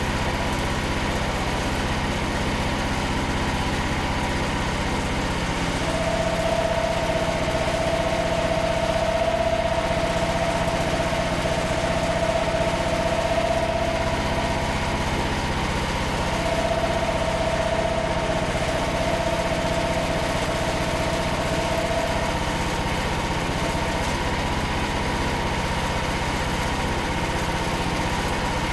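Frontier OS27 portable band sawmill running: its engine holds a steady speed throughout, with a high steady whine that comes in about six seconds in, drops out briefly near the middle, and fades away about two-thirds of the way through.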